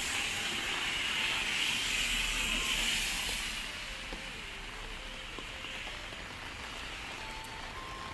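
Steady hiss of rain falling on wet pavement, louder for the first three seconds or so and then easing off.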